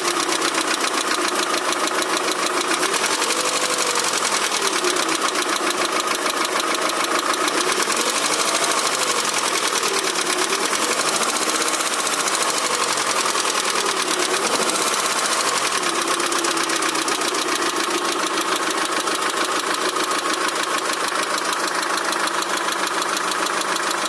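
Daewoo Nexia 16-valve engine running with a fast, even knocking tick. The owner has not found its cause, and the knock is there whether the engine is cold or warm.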